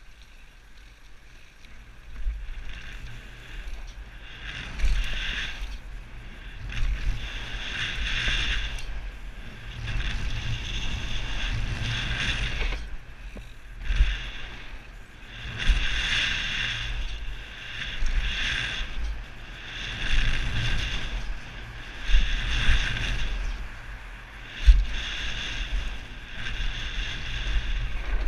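Mountain bike riding fast down a rough trail, heard from a helmet-mounted camera: wind buffeting the microphone over the rumble and rattle of the tyres and bike on the ground, rising and falling every second or two, with several hard thuds from bumps and jump landings.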